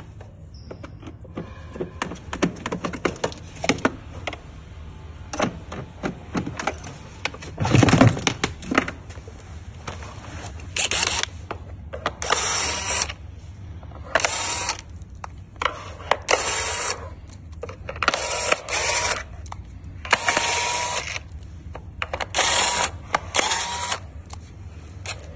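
Cordless electric screwdriver run in about eight short bursts, each under a second, backing the screws out of a ride-on toy car's plastic battery box. Before that come clicks and knocks of plastic and wiring being handled, with one louder knock.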